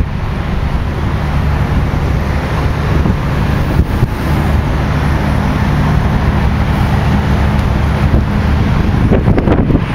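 A moving open-top double-decker bus: a steady low engine drone with road and traffic noise, and wind buffeting the microphone, which gets choppier near the end.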